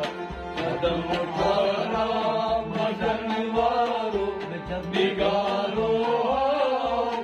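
Harmonium playing a wavering melody between sung lines of a Kashmiri devotional song, over a steady hand-drum beat about twice a second.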